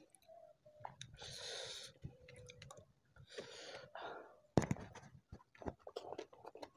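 Eating sounds: two soft breathy hisses, then chewing with many wet mouth clicks and smacks from about four and a half seconds in, as a mouthful of rice and spicy shrimp balado is eaten by hand.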